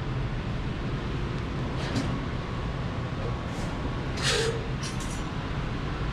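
Steady low hum and rumble of a welding shop's machines and ventilation, with a brief burst of hissing noise about four seconds in.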